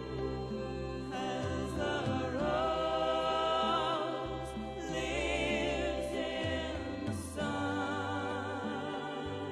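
Church music: singing with vibrato on long held notes over a steady instrumental accompaniment.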